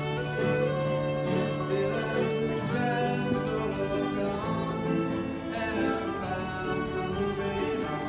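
A traditional session group of fiddle, accordion, tin whistle, flute and banjo playing a slow song accompaniment in long held notes.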